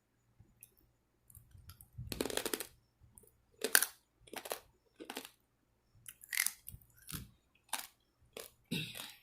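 Hard, seasoned pork skin strips being bitten and chewed: a run of sharp, dry crunches, roughly two a second, the loudest about three and a half seconds in.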